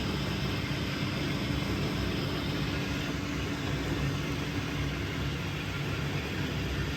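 1980s Vulcan Dishlex Mk8 dishwasher running its pre-wash: the wash pump hums steadily while the spray arms swish water around the tub, a powerful swoosh that is not too loud.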